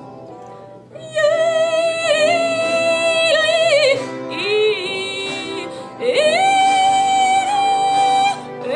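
Female voice singing in an operatic style, holding long notes with wide vibrato and sliding between pitches, over a soft accompaniment of sustained tones. The voice comes in loudly about a second in, drops lower and quieter briefly around the middle, then rises to a higher held note.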